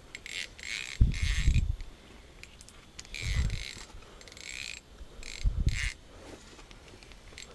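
Fishing reel's drag buzzing in about four short bursts as a hooked fish, taken for a catfish, pulls line off against it. A low rumble sits under the longer bursts.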